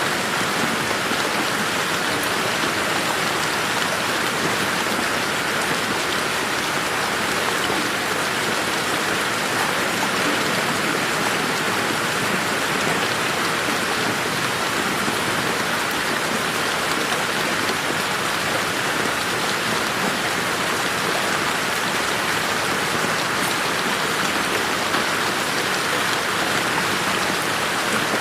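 Steady rain falling on garden foliage and ground, an even patter of many drops with no thunder.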